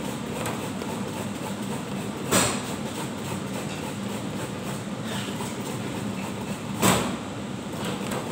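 Handheld metal grater scraping a vegetable into a plastic basin in quick repeated strokes, with two sharper knocks, one about two seconds in and one near the end.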